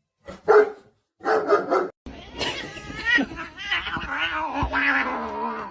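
A cat yowling: a long, wavering, drawn-out call lasting several seconds, preceded by two short cries.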